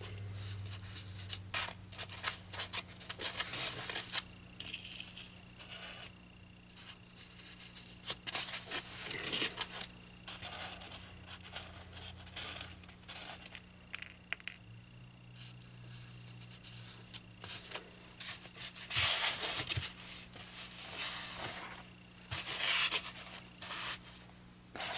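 Fabric rustling and scratching in irregular bursts as it is pulled tight and pinned onto a styrofoam board, with a few small sharp clicks.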